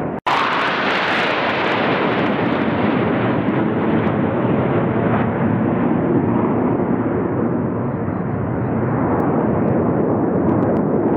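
Jet aircraft of an aerobatic formation flying past with a loud, steady rushing engine noise. A brief cut to silence comes about a quarter second in, then the noise starts again suddenly, brightest at first.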